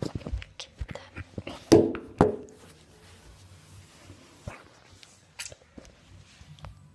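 Handling noise from a phone held against the body: fingers and sweater fabric rubbing and knocking on the microphone, with two louder bumps about two seconds in, then lighter scattered taps.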